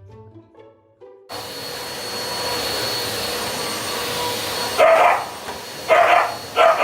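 A steady motor whir with a thin high whine, and a dog barking three times over it in the second half.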